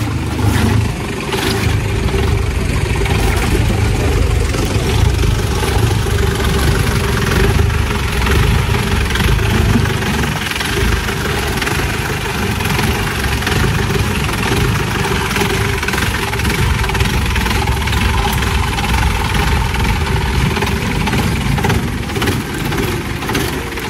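Mahindra jeep's diesel engine running steadily with a low, even throb.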